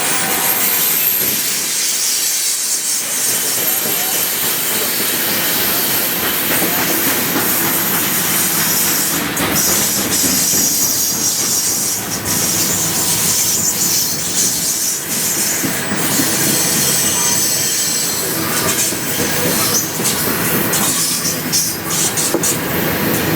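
Long freight train rolling past at close range: steel wheels running on the rails with scattered clanks, and a thin high wheel squeal near the start.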